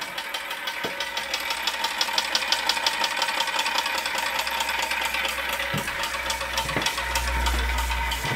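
Weeden No. 49 model steam engine running steadily under steam, a rapid even beat of small mechanical clatter and exhaust puffs. A low rumble sits underneath from about a second in, heaviest near the end.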